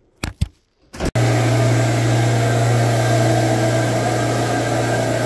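Two short handling knocks, then about a second in a carpet-shampoo extractor cuts in loud and runs steadily: its vacuum motor gives a constant low hum under a rushing hiss.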